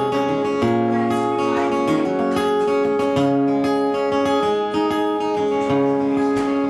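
Acoustic guitar strummed in a steady rhythm, an instrumental passage of chords changing every second or so with no singing.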